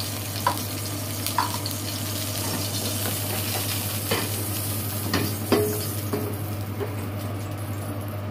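Hot cooking oil sizzling in a frying pan over a gas burner: a steady hiss that grows stronger a few seconds in. A few short knocks and scrapes as the pan is moved and tilted on the stove grate.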